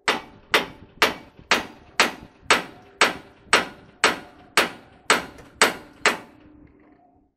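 A hammer strikes a steel fitting in a dump truck's swing-arm suspension in a steady run of thirteen blows, about two a second, each ringing briefly. The blows stop about six seconds in.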